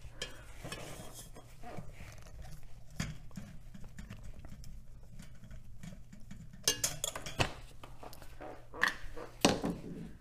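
Scattered small metal clicks and taps of a nut driver working the rusty nuts on an old desk fan's wire guard cage, with a few sharper knocks about two thirds of the way in and near the end as the tool is set down and the cage handled. A low steady hum runs underneath.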